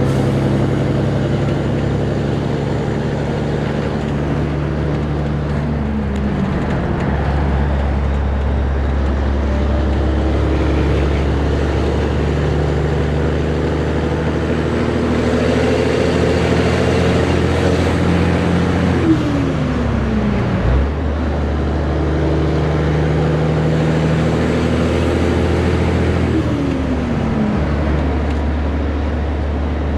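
Peterbilt 362 cabover truck's Caterpillar diesel engine running steadily under way. Its note drops three times as gears are changed, the third change coming several seconds after the second.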